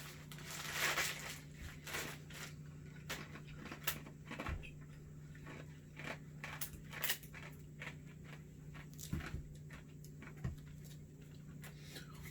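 Handling noise: scattered light clicks and short rustles as rubber resistance bands are handled, over a steady low hum.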